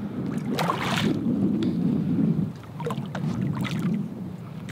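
Wind rumbling on the microphone over water moving around dock pilings, with a short hissing rush about a second in.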